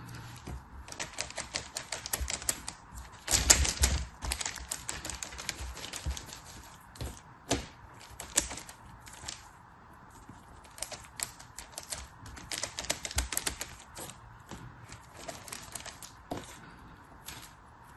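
Packaging being handled and opened: rapid, irregular clicks and crackles, with a louder burst about three and a half seconds in.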